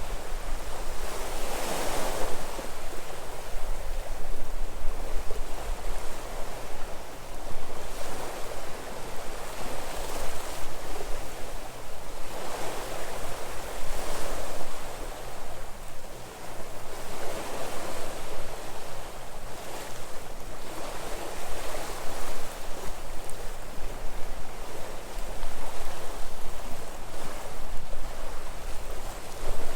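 Sea waves breaking on the shore, the surf swelling and falling back every few seconds. Wind rumbles on the microphone underneath.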